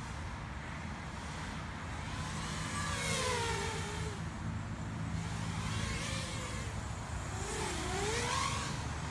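FPV racing quadcopter (QAV210 frame, 2204 2300Kv motors on 5-inch props) flying past, its propeller whine sliding up and down in pitch as the throttle changes. It swells about three seconds in and again near the end.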